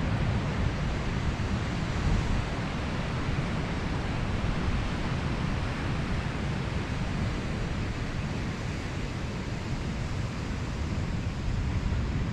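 Steady wind noise on the microphone, a rushing sound heaviest in the low end.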